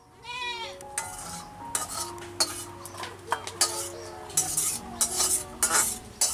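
Metal spatula scraping cooked red spinach out of a steel wok into a steel bowl: repeated sharp metal-on-metal scrapes and clinks, about two a second.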